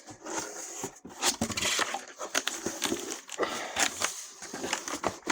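Cardboard firework cases and their packaging being handled: rustling and scraping with many short knocks.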